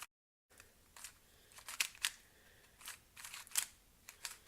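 Small hard plastic objects being handled: scattered sharp clicks with light rustling, the loudest clicks about two seconds and three and a half seconds in, after a half-second dropout to silence at the very start.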